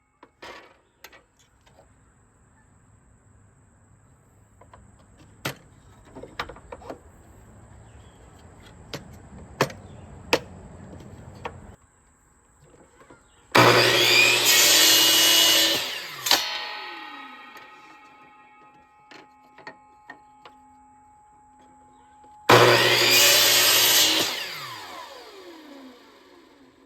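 Miter saw cutting through a wooden segment twice, each cut about two and a half seconds long, the motor whine falling away as the blade spins down after each cut. Light clicks and knocks come before and between the cuts.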